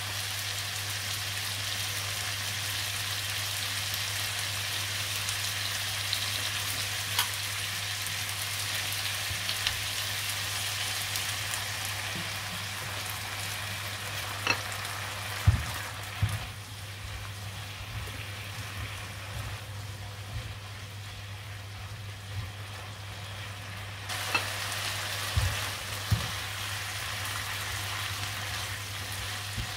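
Stir-fry sizzling in a hot pan as it is tossed, with several sharp knocks of the spatula against the pan. The sizzle eases for several seconds past the middle, then picks up again. A steady low hum sits underneath.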